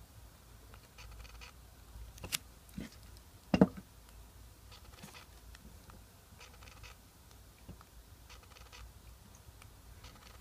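Small clicks and rubbing from a compact digital camera being handled and its buttons pressed, with a sharp click a little over two seconds in and a louder short knock about a second later.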